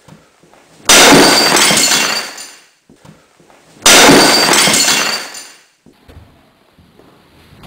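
A steel crowbar smashing into a porcelain toilet twice, about three seconds apart. Each blow is a sudden crash of breaking porcelain that rattles on and dies away over about a second and a half. Another blow lands right at the end.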